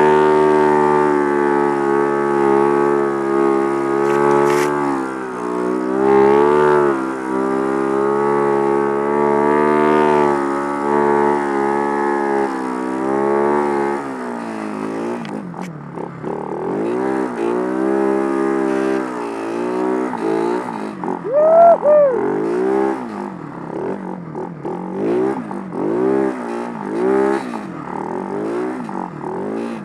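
Snow bike, a 570 dirt bike on a Yeti 129 SS track kit, climbing hard. Its engine holds high, fairly steady revs for about the first half. Then the revs rise and fall every second or so as the throttle is worked, with one sharp loud rev a little past two-thirds of the way through.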